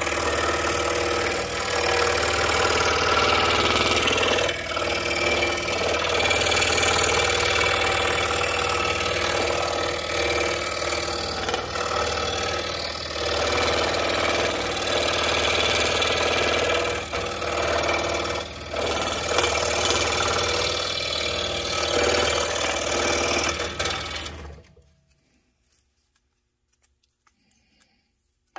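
Scroll saw running, its reciprocating blade cutting letters out of quarter-inch wood. The saw stops abruptly about four seconds before the end, leaving near silence with a few faint clicks.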